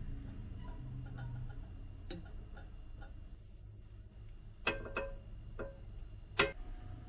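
Metal kitchen utensils clicking against dishes. There are a few light taps in the first couple of seconds, then four sharper clicks of tongs on a metal pan, each with a short metallic ring. The last click, near the end, is the loudest.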